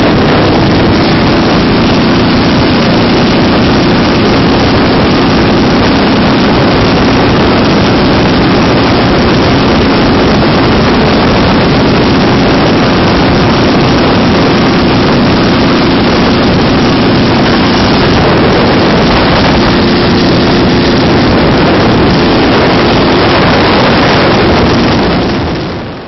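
Dnepr sidecar motorcycle's flat-twin engine running steadily at cruising speed, heavily mixed with wind rushing over the microphone. The sound fades out near the end.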